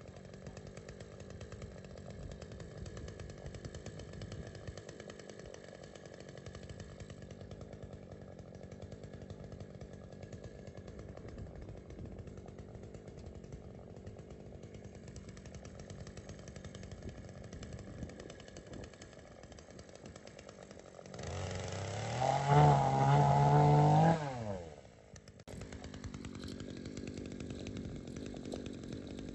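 Chainsaw running at low revs, then revved hard for about three seconds about two-thirds of the way in before the revs fall away and it settles back to a steady run.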